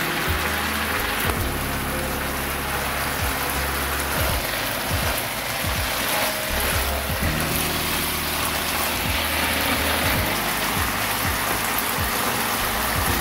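Tofu and shishito peppers sizzling in a reducing soy-based sauce in a frying pan, a steady hiss with light scrapes and clicks as wooden spatulas turn them. Background music plays underneath.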